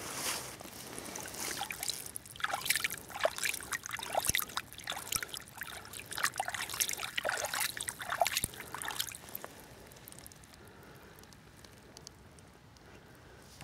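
Irregular splashing and sloshing of shallow water as a barbel is lowered back into the river and held at the bank. The splashing stops about nine seconds in.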